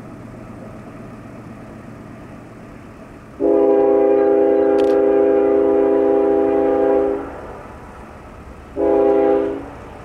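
Locomotive air horn sounding a long blast of several tones at once, then after a short pause a brief second blast, over a low steady rumble.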